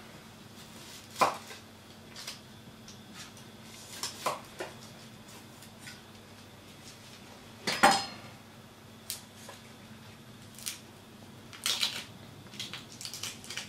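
Kitchen knife knocking on a wooden cutting board and papery onion skin crackling as an onion is trimmed and peeled by hand. Irregular sharp knocks and clicks, the loudest about eight seconds in.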